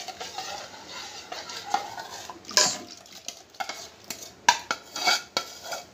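A metal spoon scraping around a steel bowl and clinking against its rim as a runny cocoa-and-milk mixture is scraped out into a steel pot. There are irregular sharp clinks, the loudest near the end.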